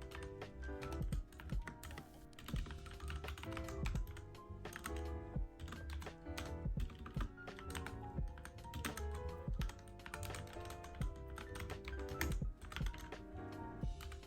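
Mechanical keyboard being typed on continuously, a fast irregular stream of key clicks, over soft background music.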